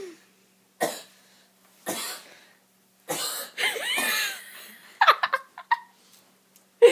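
A person coughing, trying to bring up mucus: short single coughs about a second apart, a longer strained, wavering fit in the middle, then a few more sharp coughs near the end.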